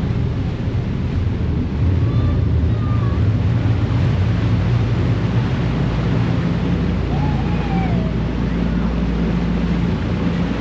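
Ferry engine running with a steady low drone while the propellers churn the water into a foaming wake at the stern, a broad rush of water noise over the hum as the ferry gets under way.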